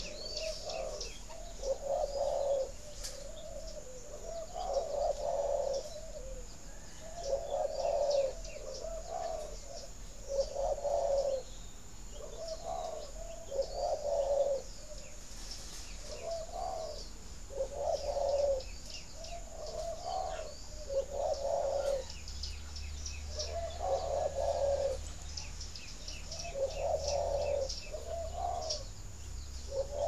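Male spotted dove cooing repeatedly, a soft low coo phrase about every two to three seconds. This is the nest call a cock gives to urge the hen to lay. Small birds chirp high and fast in the background throughout.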